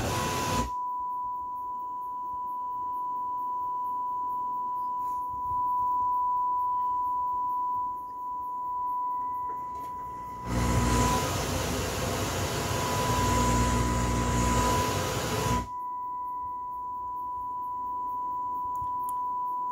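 An Ampex ASR 100 receiver plays a steady test tone around 1,000 hertz during its post-repair test. About halfway through, a loud rush of static hiss and rumble covers the tone for roughly five seconds, then stops suddenly, leaving the tone alone again.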